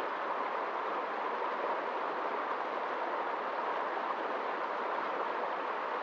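Shallow rocky stream rushing and churning over stones: a steady, even rush of flowing water.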